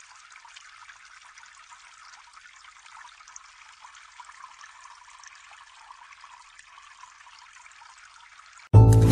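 Faint, steady trickle of water poured into a well in a mound of flour to mix dough. Loud music cuts in suddenly near the end.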